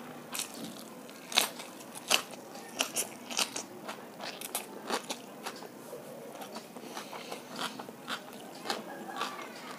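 Close-up crunching and chewing of crisp food: sharp, irregular crackling bites all through, the loudest a little over one second and about two seconds in.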